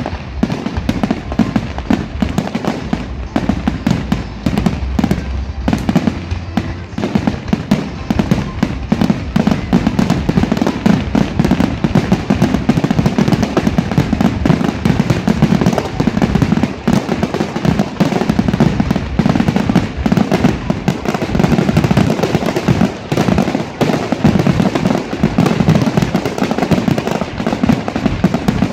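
Aerial fireworks bursting in a dense, continuous barrage, many bangs a second running into one another over a steady low rumble.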